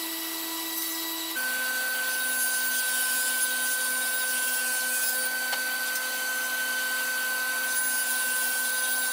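Table saw running steadily as plywood drawer parts are crosscut on a panel sled. The hum shifts to a different steady pitch about a second and a half in.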